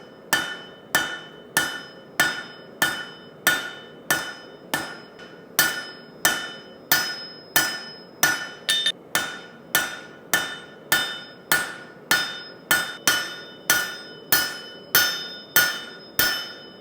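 A hand hammer striking a steel bar being forged into a sword, in a steady rhythm of about one and a half blows a second. Each blow rings metallically.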